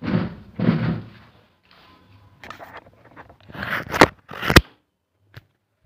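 Phone being handled right at its microphone: rustling and scraping, with two sharp knocks about half a second apart near the end.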